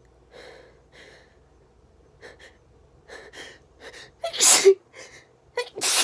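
A person's quick, gasping in-breaths coming faster and faster as a sneeze builds, then two loud sneezes in a row near the end.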